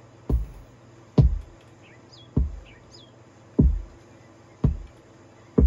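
Kick drum one-shots from a deep house sample pack, auditioned one after another, six strikes about a second apart, each a deep thump that drops in pitch. Faint high chirping and a steady low hum run underneath.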